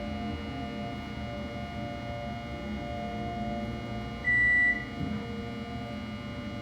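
Steady electrical and ventilation hum with several steady tones. A single short, high electronic beep comes about four seconds in and lasts about half a second.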